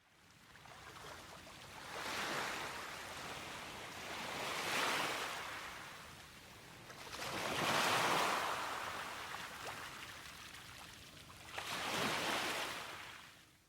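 Small sea waves washing ashore in four slow surges, each swelling and then fading back.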